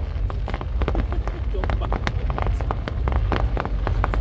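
Fireworks crackling: a dense, irregular run of sharp pops over a steady low rumble.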